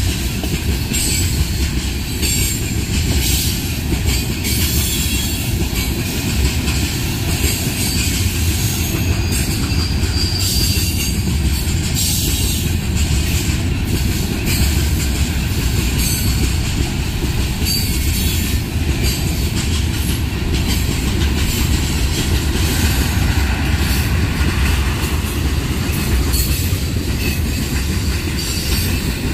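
Railroad tank cars of a freight train rolling past close by: a steady rumble of steel wheels on rail with irregular clicks and clanks from the wheels and couplers. A brief high wheel squeal comes about ten seconds in.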